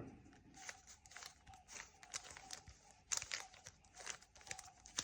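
Faint clicking of a 3x3 Rubik's Cube's plastic layers being turned, a quick series of clicks as a move sequence is carried out, loudest a little past three seconds in.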